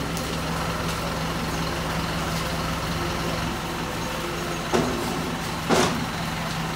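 Lorry engine idling steadily, with two short knocks about five and six seconds in.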